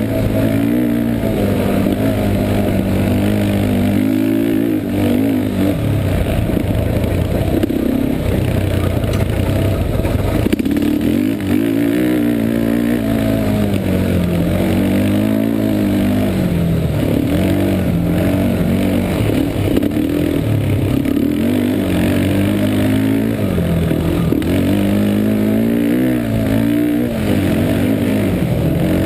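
Yamaha Warrior 350 ATV's single-cylinder four-stroke engine under hard riding, revving up and dropping back again and again as the throttle is worked and gears change.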